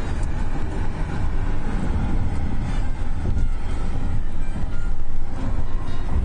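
Steady road and tyre noise with a low wind rumble from a car travelling at highway speed.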